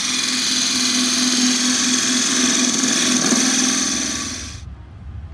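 Turning tool cutting a dovetail tenon into a spinning wood blank on a lathe: a steady hiss of the cut over a steady low hum. It cuts off abruptly near the end.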